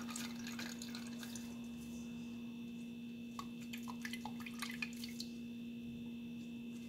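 Carrot juice dripping and trickling from strained pulp in a fine-mesh sieve into a plastic measuring jug: faint scattered drips and small ticks over a steady low hum.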